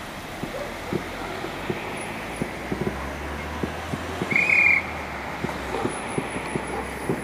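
Aerial fireworks going off, a run of irregular sharp bangs and pops over a steady hiss. A short, high whistle-like tone sounds for about half a second, about four and a half seconds in.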